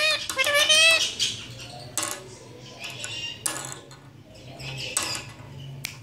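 Indian ringneck parakeet talking in a high, warbling voice for about a second at the start, then quieter chatter with a few sharp clicks and taps.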